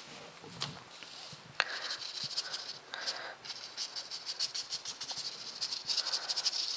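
Scratchy rubbing on watercolour paper: a rapid run of fine scratches that grows busier and louder about four seconds in.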